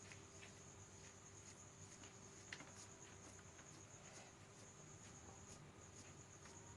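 Near silence: faint room tone with a steady high-pitched whine, a low hum and a few faint scattered ticks, one a little louder about two and a half seconds in.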